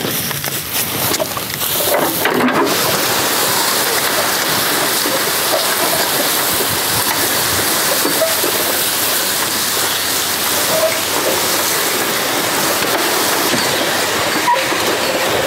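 Steel Martin Ditcher, an early-1900s road ditcher, being dragged on its side in the transport position over dry grass and dirt: a steady scraping, rustling hiss that starts about two seconds in.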